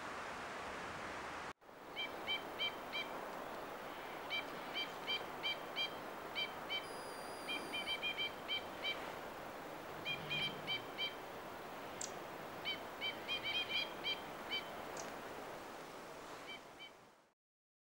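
Two-barred crossbills calling: short nasal notes, each with several harmonics, given in quick runs of two to six with pauses between, over a steady background hiss.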